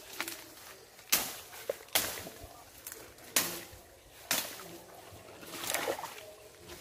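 Grass and brush being slashed back with a blade to clear a spot. There are four sharp swishing cuts about a second apart, then a softer rustle near the end.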